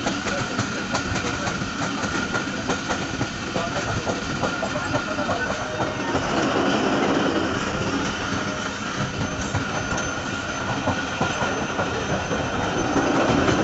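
Passenger train running, heard from an open doorway: wheels clattering over the rails with a steady rolling noise and a thin high whine above it. It swells louder about six seconds in and again near the end.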